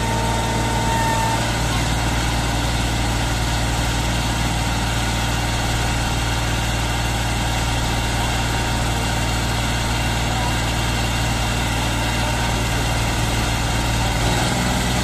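Tractor diesel engine running at a steady speed, with no revving or change in pitch.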